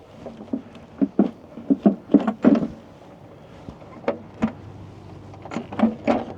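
Irregular clunks and knocks of metal parts being handled as the valve cover of a Detroit Series 60 diesel engine is worked loose and lifted off, in several quick clusters.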